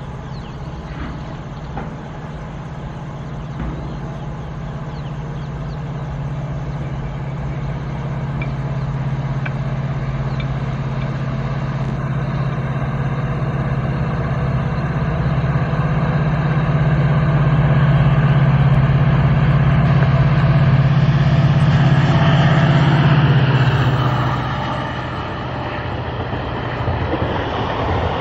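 EMD two-stroke diesel engine of a WDP-4D locomotive working under power as it pulls a train out of a station, a deep steady drone growing louder as it approaches. Near the end the engine drone falls away as the locomotive passes, giving way to the rattle of coaches on the rails.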